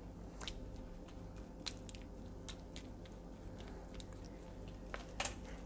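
A fork stirring grated apple and pear with chopped nuts in a bowl: faint soft squishing with scattered small clicks of the fork against the bowl, one a little louder about five seconds in.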